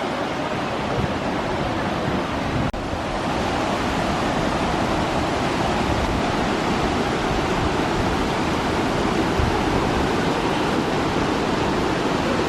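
Steady rush of a waterfall's falling water, even and unbroken apart from a split-second break about three seconds in.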